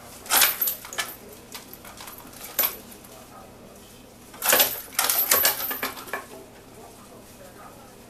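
Metal chain of a hanging parrot toy rattling and clinking as an African grey parrot grabs and pulls at it. There is a short burst about half a second in and a few lighter clinks, then a longer clattering run from about four and a half to six seconds.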